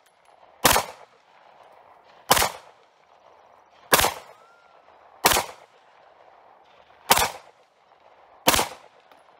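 Star Model BM 9mm pistol fired six times in slow, steady succession, a single shot about every second and a half.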